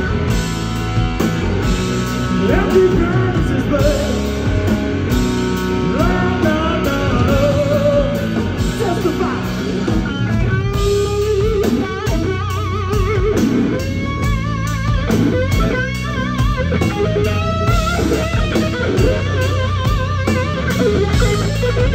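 Live blues-rock band playing: an electric guitar solo of bent, sliding notes over drums and bass, with long held notes shaken by wide vibrato from about halfway in.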